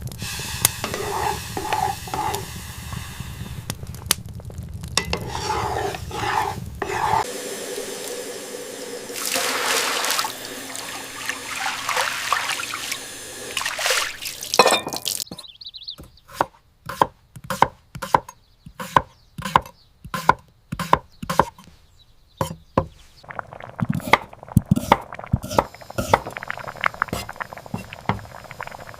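Kitchen sounds: liquid pouring and stirring with a steady hiss, then a run of evenly spaced knife strikes on a chopping board, a little over one a second, from about halfway through.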